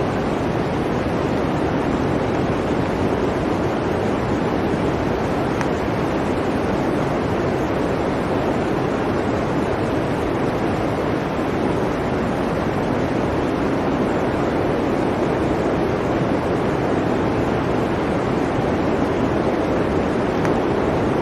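Blizzard wind blowing steadily, an even rush of noise with no gusts, lulls or separate sounds.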